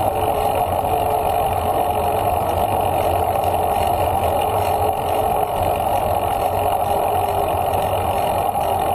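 Steady wind and rolling noise from a bicycle moving at about 13 mph on asphalt, picked up by an action camera on the bike or rider.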